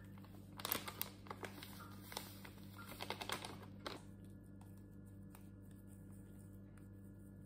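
Crinkling and crackling of a paper-foil sachet of hotteok filling mix as it is shaken out into a ceramic bowl: a dense run of small crackles lasting about three seconds, then only a few faint ticks.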